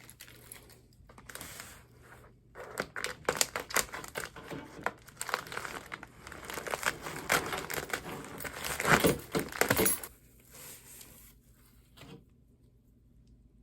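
Packaging crinkling and tearing as it is cut open with a small keychain knife tool, a dense rustle with sharp crackles, loudest about nine seconds in, dying away to a couple of short rustles near the end.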